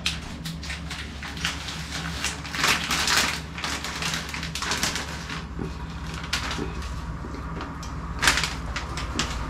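Metal tongs clattering and scraping at a pot of boiling water on the stove as dry pasta goes in, in irregular short strokes over a steady low hum.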